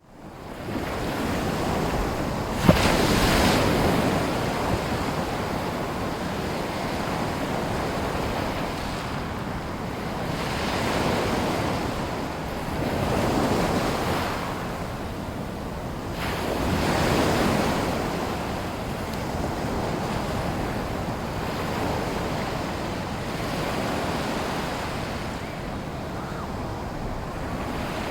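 Small waves washing in on a sea lagoon shore, a steady wash that swells and falls back every few seconds, with wind noise on the microphone. A single sharp knock sounds once, about three seconds in.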